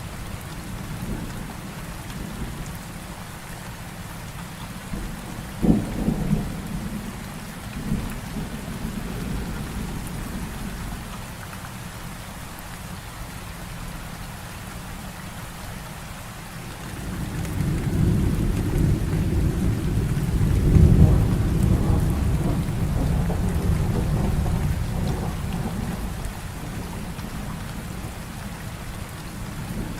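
Heavy rain falling steadily in a thunderstorm. Two sharp thunder cracks come about 6 and 8 seconds in, and a long, low roll of thunder swells from just past halfway, peaks, and fades away near the end.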